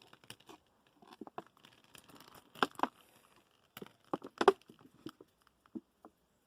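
Handling noise: scattered clicks, taps and crinkling rustles of objects being moved about. The loudest knocks come about two and a half seconds in and again about four and a half seconds in.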